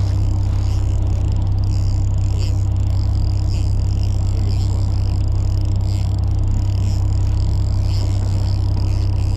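Fishing boat's engine running with a steady low rumble, with a faint steady high hiss above it.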